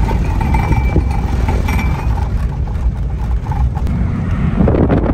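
Camper van driving: a steady low rumble of engine, road and wind noise heard inside the cabin with a side window down, swelling briefly near the end.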